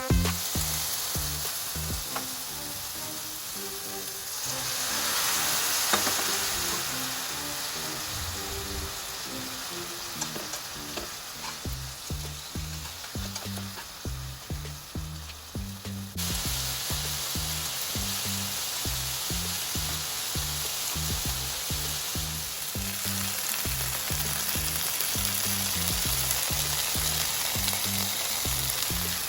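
Chicken frying in a pan, sizzling steadily throughout. Background music with a steady beat plays underneath.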